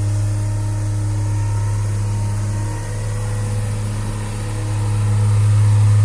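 Diesel engine of an Atlas-Terex TW160 wheeled excavator running steadily with a deep hum, growing a little louder near the end.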